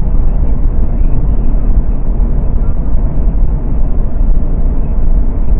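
Steady low rumble of a Mercedes-Benz car cruising at highway speed: road and wind noise heard inside the cabin, with no change in pace.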